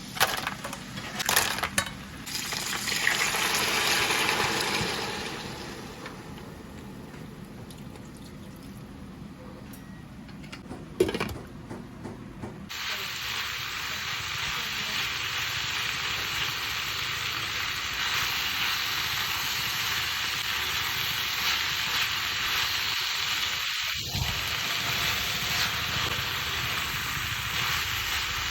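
Kitchen cooking sounds: a few clicks and knocks of utensils, then a steady hiss that starts suddenly about twelve seconds in and runs on.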